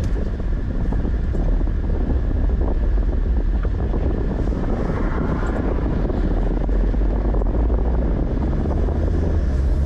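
Car driving, with a steady engine and road rumble heard from inside the cabin.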